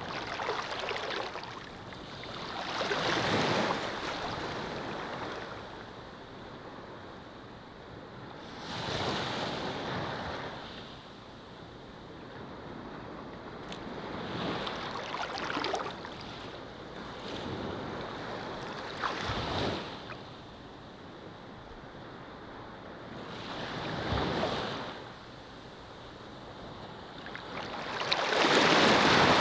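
Ocean waves breaking and washing onto a shore, swelling and falling away every four to six seconds, the loudest surge near the end.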